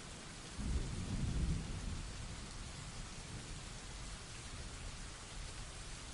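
Steady heavy rain with a sudden low thunder rumble that begins about half a second in, peaks, and fades out by about two seconds in.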